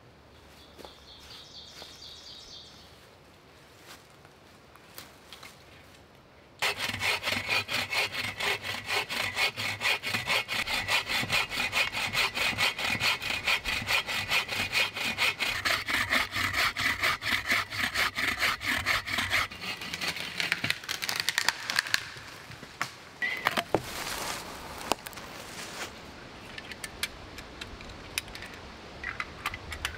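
Bow saw cutting through the trunk of a dead cherry tree, rapid even back-and-forth strokes that start abruptly a few seconds in and run steadily for a long stretch. Then the sawing stops and a few louder, irregular knocks follow.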